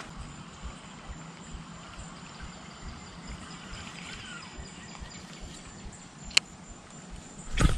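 Steady high-pitched insect drone over quiet outdoor ambience, with one sharp click about six seconds in and a brief louder thump just before the end.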